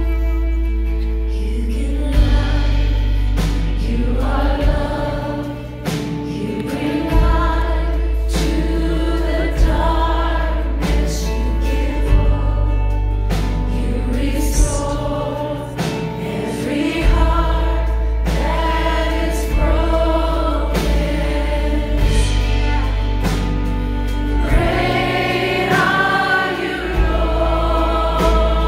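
Live Christian band performance, a sung worship song over long, held deep bass notes and regular drum hits, heard from the audience in a concert hall.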